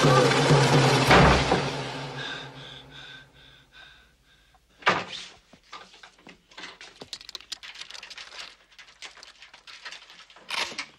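Film score ending on a sharp hit about a second in and fading away with echoing pulses. Then a heavy thud, followed by scattered small knocks and scuffs of movement on a wooden floor and another thump near the end.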